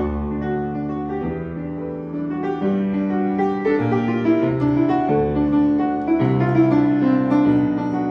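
Slow piano music, an original backdrop score, with held chords that change about once a second.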